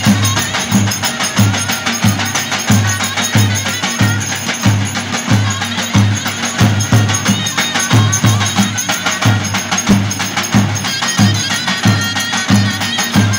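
Turkish davul bass drums beating a steady dance rhythm, about two deep strokes a second, with quick clicking percussion and a folk melody over them.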